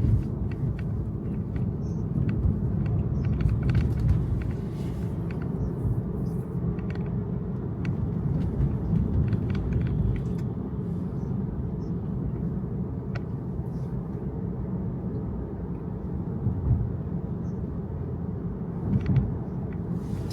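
Steady low road and tyre rumble heard inside the cabin of a moving Tesla, with no engine note, and a few faint ticks scattered through it.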